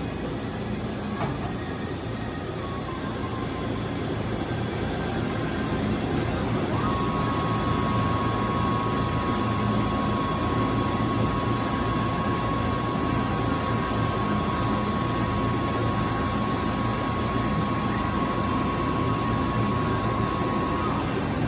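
Matsuura MC-800VG2 vertical machining center running under power: a steady mechanical hum that builds over the first several seconds, joined about seven seconds in by a steady high whine that holds until near the end.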